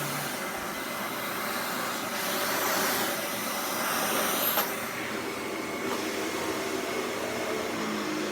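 Dyson DC65 Animal upright vacuum cleaner running while vacuuming. The steady sound swells and eases in places, with a brief click about four and a half seconds in.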